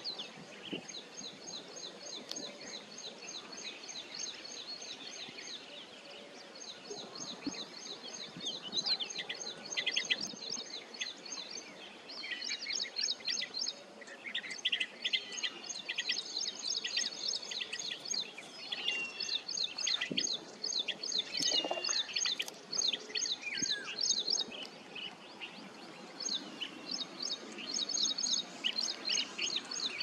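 Blue-tailed bee-eaters calling: a busy, overlapping chorus of short, rapidly repeated high chirps and rolling trills from several birds. The calls are thinner for a few seconds near the start and again near the end.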